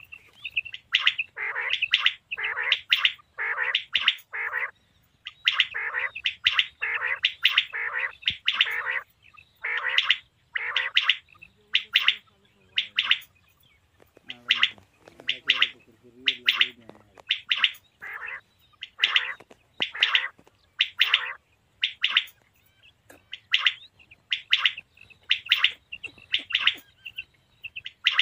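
Male common quail calling: clusters of short, sharp, high notes, repeated about once a second, with a brief pause and a few low, quiet notes a little before halfway.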